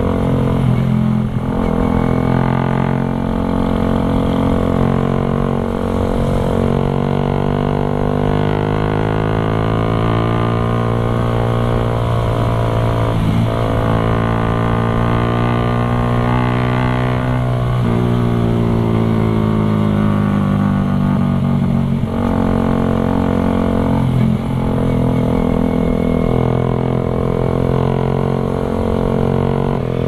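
Suzuki Raider 150 Carb's single-cylinder four-stroke engine running through an aftermarket Creed open exhaust while the bike is ridden on the road, a loud, full, deep drone. Its pitch climbs and sags with the throttle, with several brief breaks.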